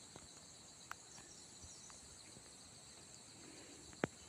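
Faint, steady chorus of insects, high and thin, with a couple of brief clicks, the sharpest about four seconds in.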